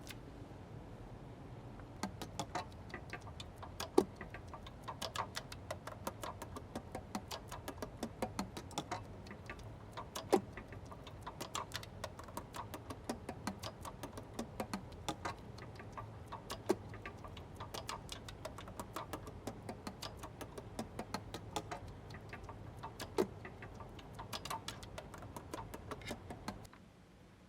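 Small metal and plastic saxophone parts clicking and clacking as the instrument is handled and assembled: a dense, irregular run of light clicks with a sharper, louder click about every six seconds, stopping just before the end.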